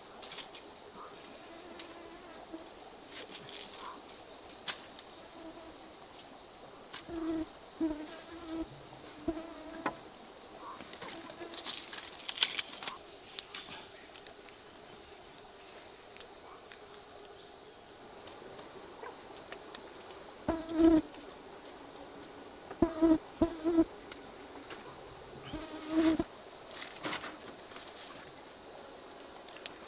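Insects droning steadily in one high, even tone. Over it come a few clicks and knocks, and short low pitched sounds in clusters; the loudest are about twenty seconds in.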